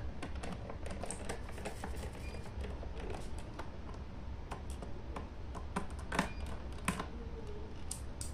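Small clicks and taps of a screwdriver turning out screws from a laptop's plastic bottom cover, with a few sharper clicks about six, seven and eight seconds in, over a low steady hum.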